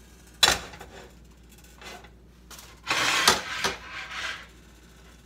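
Metal kitchen tongs clicking and scraping against a glass bowl as pieces of marinated chicken are picked up: one sharp click about half a second in, then a cluster of clacks and scraping about three seconds in.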